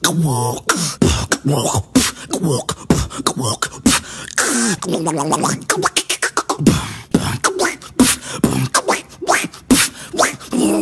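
A beatboxer making vocal sound effects with the mouth: rapid clicks and pops mixed with pitched vocal tones that slide up and down.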